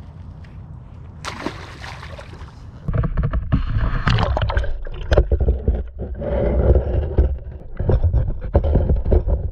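Water noise picked up by a camera held under a pond's surface. About three seconds in it turns to a loud, muffled low rumble with irregular knocks and clicks, as water moves against the camera.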